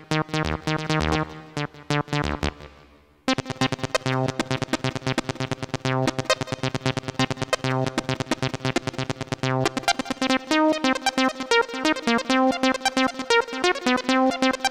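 Yamaha PSR-E473 portable keyboard playing its preset sounds: a passage fades out about three seconds in, then a new sound starts suddenly with rapid notes, and the pattern shifts higher about ten seconds in.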